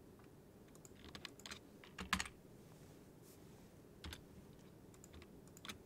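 Faint, scattered keystrokes on a computer keyboard during 3D modelling work. There is a quick run of taps about a second in, the loudest taps around two seconds, and single taps near four seconds and near the end.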